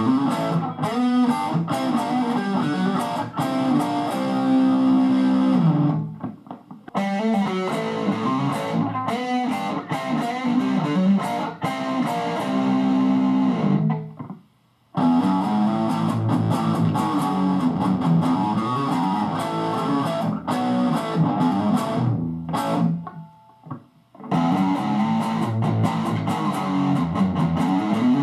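Electric guitar played through a Marshall DSL valve combo amp. It plays four passages of a few seconds each, with brief stops between them.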